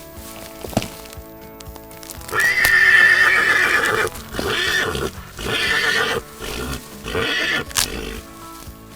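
Horse stallion whinnying: one long high call about two seconds in, followed by four shorter pulsing calls, over steady background music.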